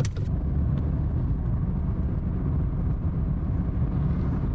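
Car on the move: a steady low rumble of engine and road noise with no change in pace.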